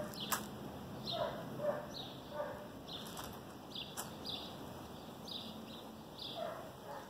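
Short bird calls repeating irregularly, sometimes two or three a second.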